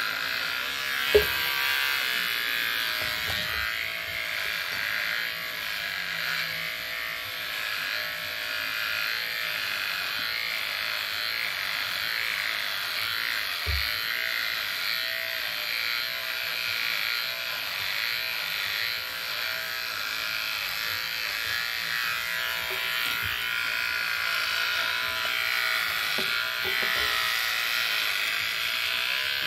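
Electric hair clippers running with a steady buzz, with brief knocks at about one second and about fourteen seconds in.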